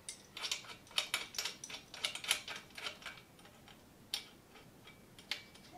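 Small metal bike hardware clicking and clinking as it is handled and fitted by hand on a kids' steel bike. A quick run of light clicks over the first three seconds, then two single clicks near the end.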